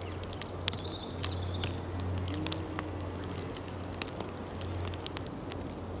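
Light, irregular pattering of falling snow, many small ticks over a steady low hum. A short bird chirp sounds about a second in.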